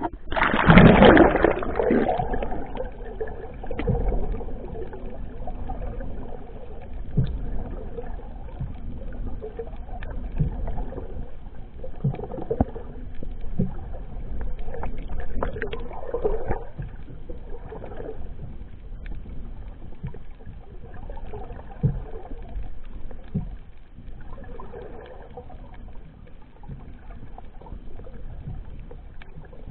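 Waterproof action camera plunging under the sea surface with a loud splash about a second in, then muffled underwater noise of water moving around the camera housing, with scattered soft knocks.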